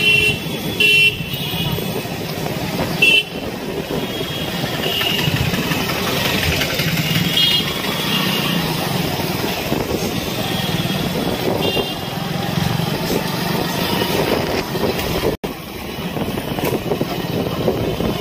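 Busy street traffic: a motorcycle engine running under a steady road noise, with short horn honks sounding several times, near the start, about three seconds in, and around five, seven and twelve seconds. The sound cuts out for an instant about fifteen seconds in.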